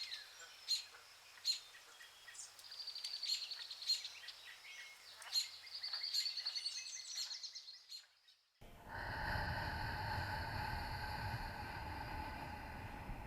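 Songbirds chirping and trilling, with repeated sharp high notes, fading out about eight seconds in. A steady drone with a low rumble then starts abruptly.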